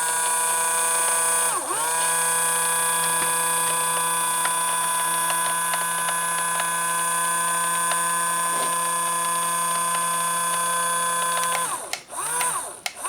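Electric motor of a Hobby Engine 1/12-scale RC track loader whining at a steady pitch. The pitch dips briefly once, a little over a second in. It cuts off near the end, followed by two short whines.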